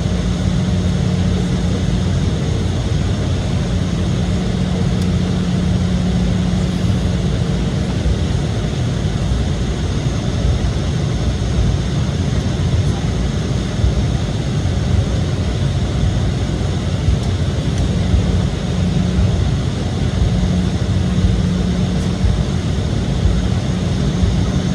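Steady cabin noise of an Embraer E175 jet airliner, its two GE CF34 turbofan engines running, heard from a window seat inside the cabin. It is an even rush of air and engine noise under a low hum that fades in and out, with no rise or fall in level.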